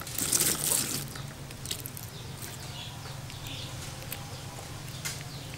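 Crispy fried frogs rustling and crackling as fingers pick through a dry pile of them, loudest in about the first second, then only a few faint clicks.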